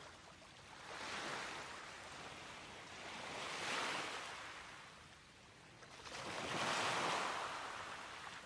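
Ocean surf washing onto a beach, swelling and fading three times, a few seconds apart.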